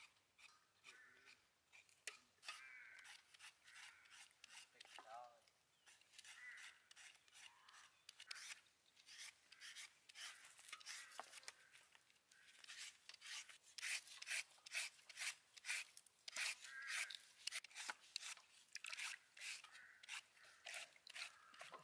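Repeated rasping strokes of a julienne peeler shredding a peeled green mango, about two strokes a second, louder in the second half.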